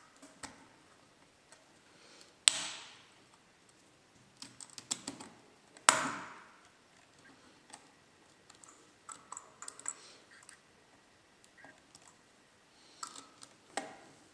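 Small clicks and taps of a hand screwdriver and screws on a laptop's metal cooling assembly as it is hand-tightened onto the motherboard. Two sharper clacks, about two and a half and six seconds in, ring briefly.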